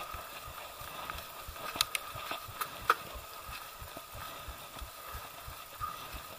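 Mountain bike rolling down a dirt singletrack: tyre noise and rattling from the bike, with a few sharp knocks about two to three seconds in.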